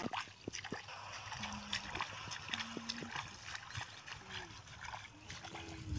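Bare feet splashing and squelching through shallow water and mud in a flooded grassy field: irregular sloshing steps with small knocks.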